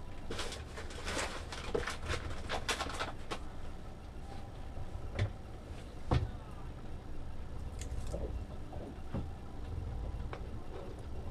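Handling noises from hands working with small parts and tools: a burst of rustling for the first few seconds, then a couple of sharp clicks, a few fainter taps, and a steady low rumble underneath.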